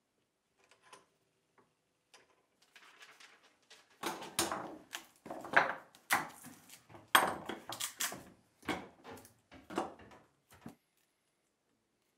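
A hand blade scraping and cutting at the wooden cricket bat, taking off dried glue: a quick run of about a dozen short, sharp scraping strokes lasting about seven seconds, after a few faint clicks.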